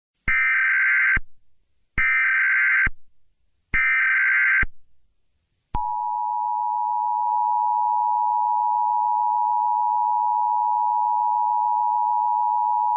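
Emergency Alert System alert tones: three short blasts of buzzy digital SAME header code, each just under a second, then the steady two-tone EAS attention signal (853 and 960 Hz together) starting about six seconds in and holding on.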